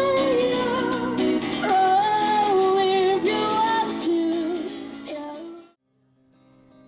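A woman singing long held notes over instrumental backing; the music cuts off abruptly about five and a half seconds in, and after a brief gap faint instrumental notes come in.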